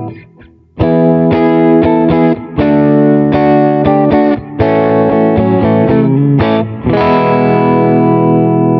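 Rock N' Roll Relics Heartbreaker electric guitar with three humbuckers, on pickup-selector position 6, played through a distorted amp. After a short pause about a second in, it plays a chord riff with brief breaks and ends on a chord left to ring.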